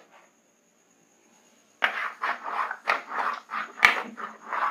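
Handheld whiteboard eraser rubbed back and forth across a whiteboard in quick scrubbing strokes, about three to four a second, starting about two seconds in.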